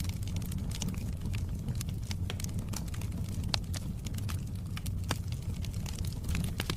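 Wood fire crackling: irregular sharp pops and snaps, a few louder than the rest, over a steady low rumble of burning.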